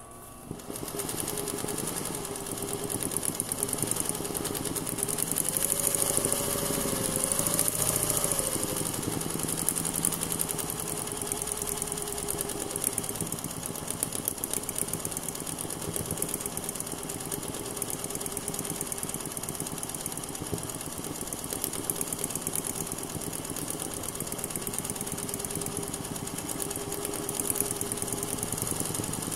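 Sewing machine running at a steady fast speed, its needle stitching continuously as free-motion embroidery is worked in a hoop; it starts about half a second in.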